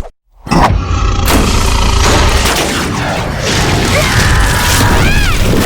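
Cartoon sound effects: after a brief silence, a loud, sustained rumbling blast starts about half a second in. Rising-and-falling squeals come over it near the end.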